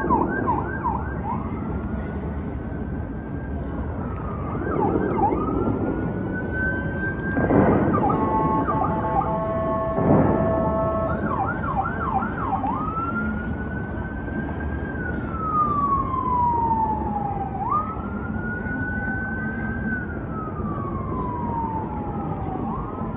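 Emergency vehicle siren switching between a fast yelp and a slow rising-and-falling wail, over steady city traffic noise. Two louder whooshing surges come about seven and ten seconds in.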